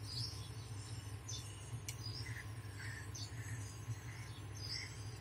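Quiet room tone with a steady low hum and faint, scattered short high chirps, plus one small click about two seconds in.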